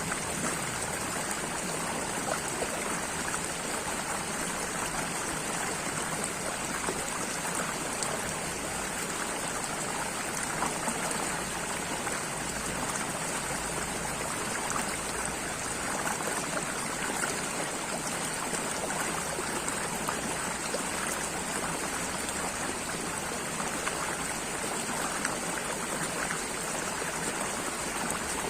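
Running water of a small stream, a steady flowing rush with fine splashing and trickling.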